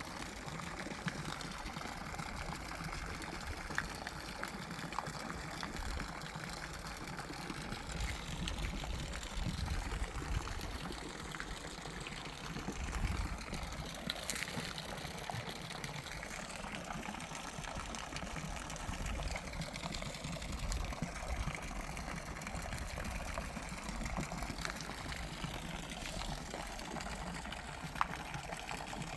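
Steady running, trickling water with a low rumble underneath and a few faint clicks.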